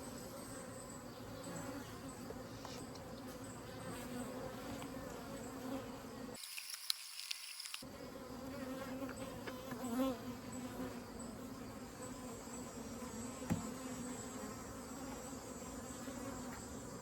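Honeybees buzzing around the hive, a steady hum of wingbeats, with a brief dropout a little after six seconds in and a few faint ticks.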